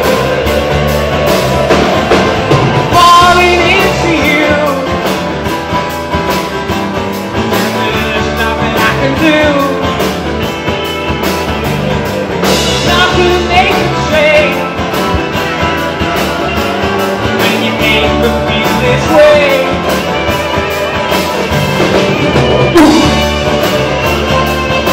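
Live rock band playing: strummed acoustic guitars over bass guitar and a drum kit, with sung vocals.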